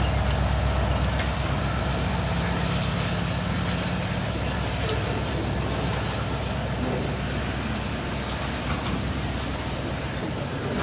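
Diesel freight locomotive passing close by, its low engine drone fading away over the first several seconds, giving way to the rolling rumble of loaded hopper wagons on the rails with occasional faint clanks.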